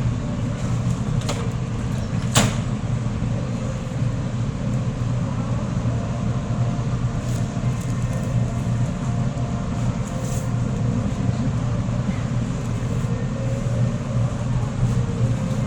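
A steady low rumbling hum, with a single sharp click about two seconds in.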